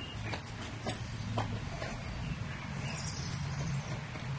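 Half-inch three-strand polyester (Poly Dacron) line being spliced by hand: strands rub and creak as they are pulled and tucked under the lay, with a few small ticks over a steady low hum.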